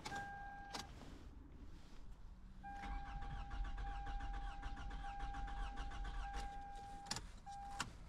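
A 2008 Toyota Camry engine cranking on the starter for about four and a half seconds without catching: a crank-no-start. A steady electronic beep tone sounds briefly at the start, runs through the cranking, and sounds again briefly near the end.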